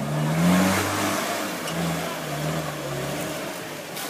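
Engine of a lifted, mud-tyred Mitsubishi Pajero revving hard under load as it climbs out of a mud pit. The pitch rises over the first second, peaks about half a second in, then holds with small dips.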